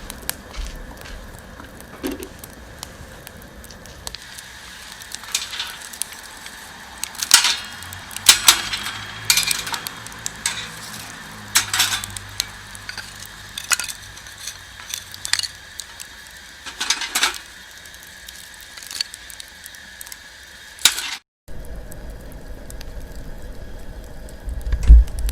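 Metal camp cookware being handled: a dozen or so sharp clinks and knocks of cups and utensils over a low steady hiss.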